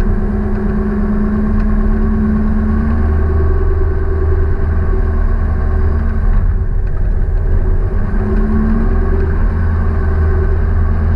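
An engine running steadily with a loud low rumble and a hum that comes and goes, typical of a vehicle running at a steady pace.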